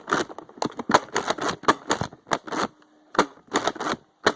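Nerf blasters being primed and fired: a quick, irregular run of sharp plastic clacks and clicks, with a short lull near the middle.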